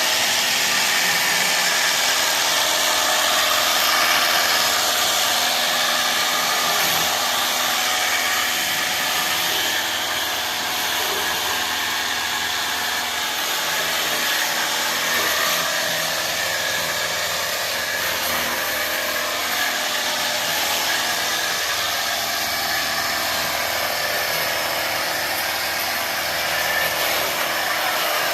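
Ecosen portable jet cleaner running steadily, its small pump motor humming under the hiss of water sprayed through the wide 45-degree fan nozzle to rinse soap off a motorcycle.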